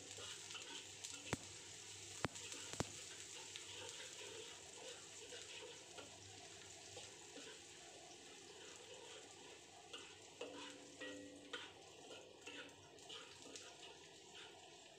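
Shallots and garlic sizzling quietly in hot oil in a wok while being stirred with a spatula, sautéed until fragrant. Three sharp clicks of the spatula striking the wok come in the first three seconds, with a few lighter scrapes and taps later.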